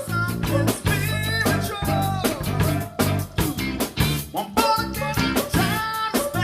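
Pop-rock/funk cover band playing live, recorded at rehearsal: drum kit keeping a steady beat under bass, electric guitar and a singing voice.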